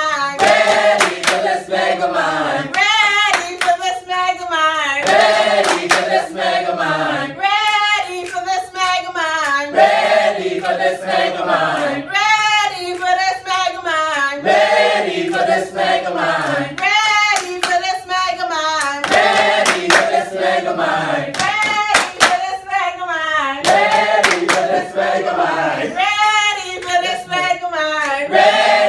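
A group of voices singing together unaccompanied, with hand claps throughout.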